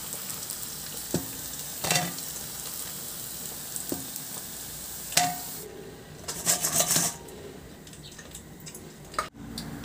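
Tofu slices deep-frying in hot oil with a steady sizzle, and metal tongs clicking against the pan four times. About six seconds in the sizzle drops away and a short clatter follows as the fried pieces go into a metal colander.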